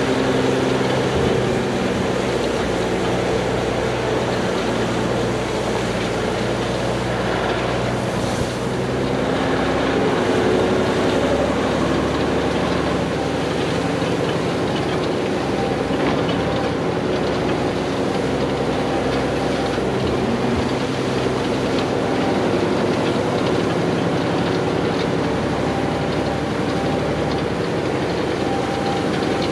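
A military 5-ton 6x6 dump truck's diesel engine running as the loaded truck drives, its pitch stepping up and down now and then with the throttle.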